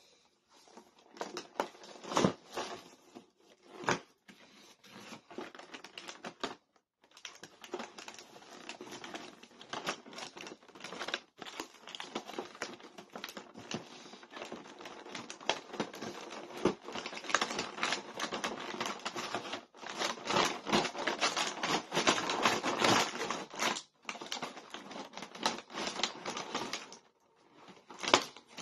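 Cardboard toy box and plastic packaging being handled and opened: rustling, crinkling and scraping with many small clicks and taps as the plastic tray is slid out of the box, pausing briefly a few times.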